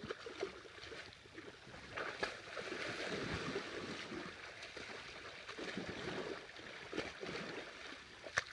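Soft, irregular sloshing and lapping of water in a pool.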